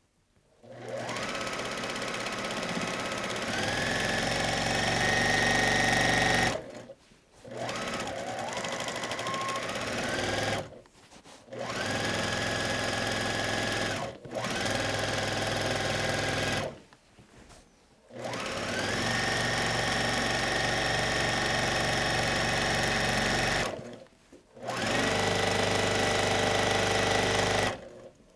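Sewing machine stitching through thick wool and muslin layers in about six runs of a few seconds each, stopping and starting between them. At the start of each run the whine rises as the machine speeds up, then holds steady.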